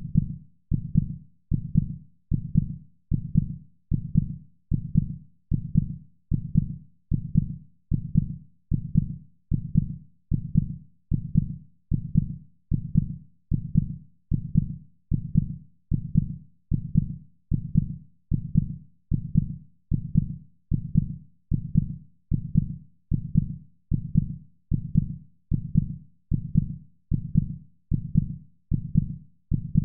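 Heartbeat: low, dull thumps repeating at a steady, even pace, each dying away quickly before the next.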